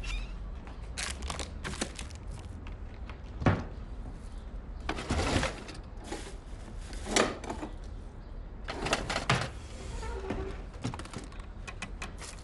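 Kitchen clatter: cupboard doors opening and shutting and crockery knocking at the sink, a string of small clicks and knocks with four or five louder thuds.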